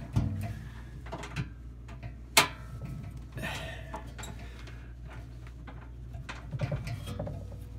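A heavy-duty Wadsworth Electric disconnect switch being thrown to off by hand: small handling knocks on the metal box and one sharp clack about two and a half seconds in, over a steady low hum.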